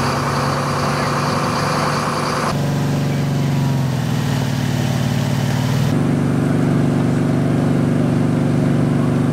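Fire engines' engines running steadily at a constant speed, powering the pumps that feed the hoses. The engine note changes abruptly twice, about two and a half and six seconds in.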